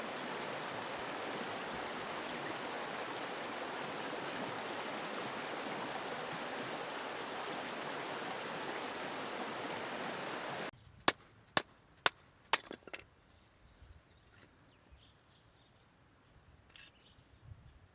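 Steady rush of a stream, which cuts off suddenly about ten seconds in. Five sharp wooden knocks follow, about half a second apart, as firewood is split by batoning.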